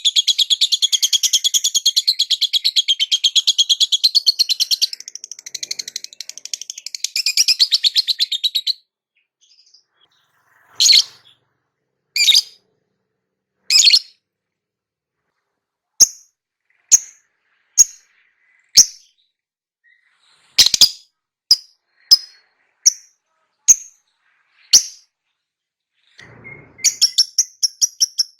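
A bird chattering in a fast, unbroken high-pitched stream for about eight seconds, then giving single sharp chirps spaced about a second apart, and breaking back into fast chattering near the end.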